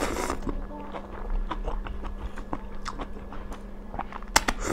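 Two people eating instant noodles: a slurp at the start, then chewing and small clicks of forks on plates, with one sharp click near the end.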